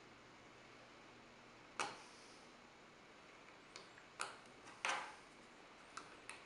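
About half a dozen sharp plastic clicks from the buttons of handheld gate remote controls being pressed and the fobs handled, as a Top B cloning remote is programmed from a BFT remote. The loudest click comes about five seconds in.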